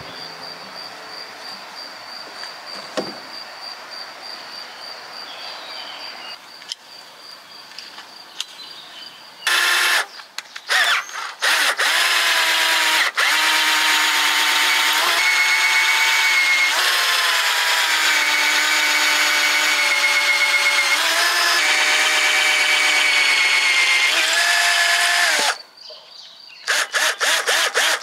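Electric drill run in short trigger bursts, then held for about fifteen seconds with its whine stepping up and down in pitch, then a few more short bursts near the end. The first part is a quieter steady background noise.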